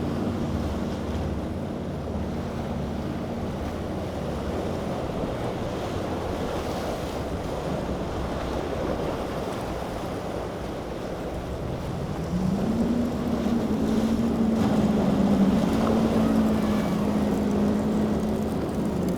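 Motorboat engines running through choppy water, with waves and wind on the microphone. About two-thirds of the way through, a boat engine rises in pitch and gets louder as it throttles up.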